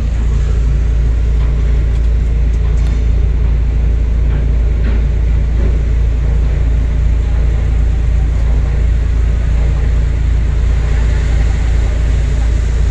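Heavy diesel engine running steadily with a deep, even rumble, growing louder right at the start.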